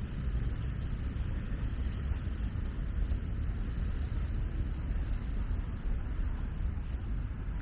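Steady road traffic noise: an even wash of cars with a deep low rumble underneath.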